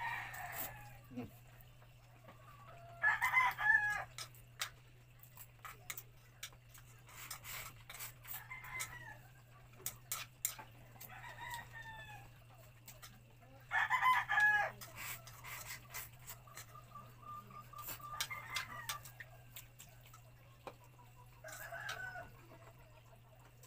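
Roosters crowing in the background: two loud crows of about a second each, around three seconds in and around fourteen seconds in, with shorter, fainter calls between. Light clicks from chopsticks and a bowl, and a steady low hum, run underneath.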